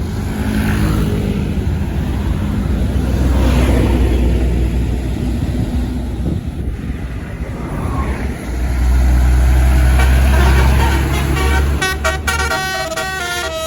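A tour bus's engine rumbles loudly as it passes. About twelve seconds in, a multi-note Basuri telolet horn plays a quick stepped tune.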